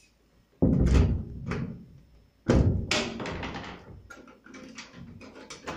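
Two heavy thuds about two seconds apart, each fading over a second, followed by a run of lighter knocks and clicks.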